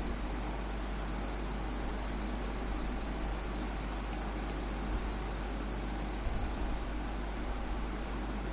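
Chopped garlic sizzling softly in hot oil in a kadai, under a steady high-pitched whine that cuts off suddenly near the end.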